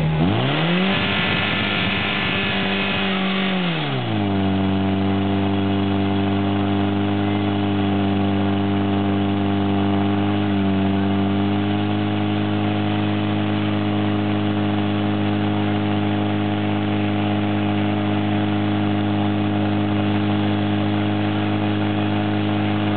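Portable fire pump engine revved hard, its pitch rising sharply and holding high for a few seconds. About four seconds in it drops to a lower pitch, then runs steadily as it drives water through the hoses to the spraying jets, with a brief dip in pitch near the middle.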